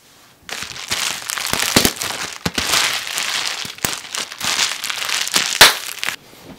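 Bubble-wrap pouch crumpled and squeezed by hand: a dense plastic crackle with sharp pops scattered through it, the loudest about five and a half seconds in. It stops about six seconds in.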